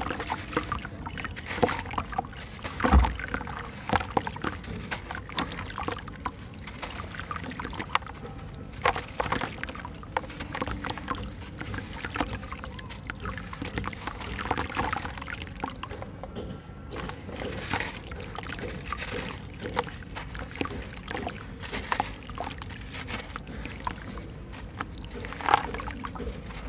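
Lumps of wet white sand-cement crumbled by hand into a tub of water: sand and broken pieces patter and splash into the water in irregular crackly bursts, with one heavier dull bump about three seconds in.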